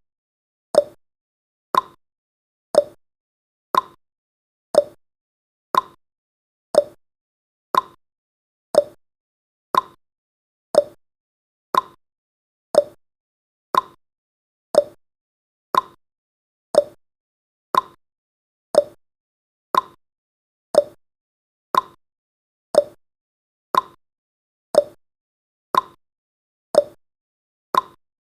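Countdown timer's sound effect: a short, sharp tick once every second, evenly spaced like a clock.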